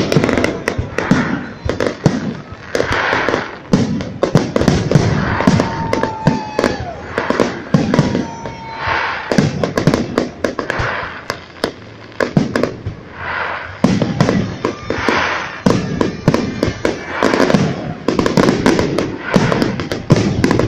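Aerial fireworks display: many shells bursting in quick succession, loud bangs overlapping one another, with a short lull a little past the middle.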